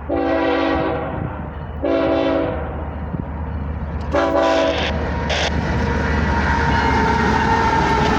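Air horn of the loaded coal train's lead locomotive, GE ES44AC BNSF #5901, sounding three short blasts about two seconds apart. After the third blast the rumble and rail clatter of the approaching train grow steadily louder.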